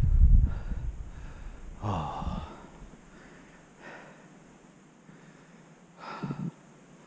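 Low rumble of skis running through powder snow and wind on a helmet-mounted action camera, dying away within the first second as the skier slows to a stop. Then heavy, voiced breaths or gasps from the winded skier, about two seconds in and again about six seconds in.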